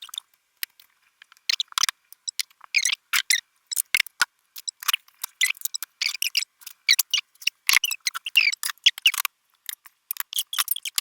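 A utensil scraping and stirring against a mixing bowl of cake batter, in short irregular bursts that cut in and out.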